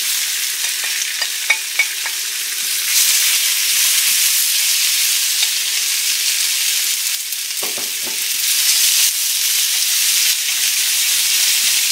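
Sliced boiled potatoes sizzling steadily in hot clarified butter in a frying pan, with a few light clicks near the start and a short knock about eight seconds in.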